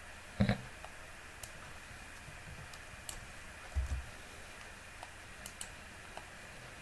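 A few scattered clicks of a computer keyboard and mouse while a code cell is edited and run. There is a short soft thump about half a second in and a fainter one about four seconds in.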